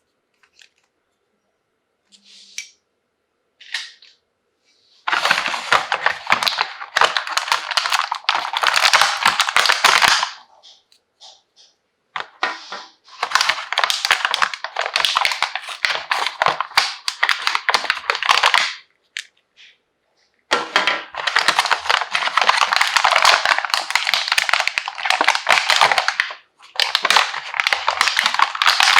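Plastic packaging crinkling as it is handled and unwrapped, in several long bursts of dense crackling with short pauses between them, after a few faint taps at the start.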